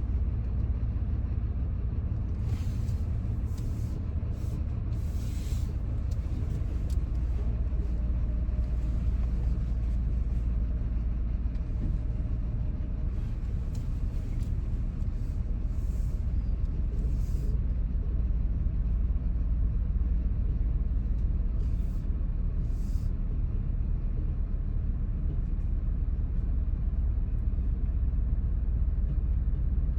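Vehicle engine idling steadily, heard from inside the cab as it waits and creeps forward in a drive-through line, with a few brief faint hisses.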